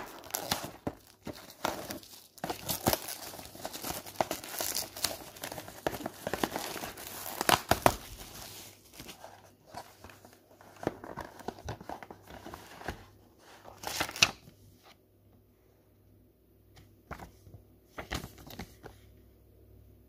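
Clear plastic wrap crinkling and tearing as it is pulled off a cardboard chocolate box, dense for the first eight seconds or so. After that come sparser rustles and clicks as the box is handled, with one loud rustle about two-thirds of the way in.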